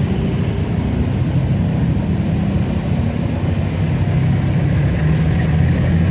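Motorcycle engine running steadily while riding, with a constant low drone and road noise.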